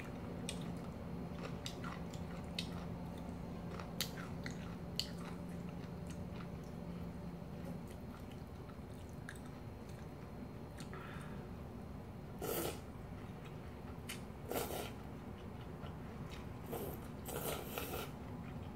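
Mukbang eating sounds from a bowl of cold kimchi noodle soup: chewing, chopsticks clicking and stirring in a glass bowl, and several louder slurps of noodles in the second half, the last near the end. A low steady hum runs underneath and stops about eight seconds in.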